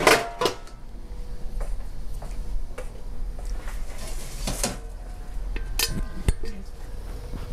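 Stainless steel bowl and pots clattering: scattered light clinks and knocks, then one louder clang near six seconds as a metal bowl rings briefly.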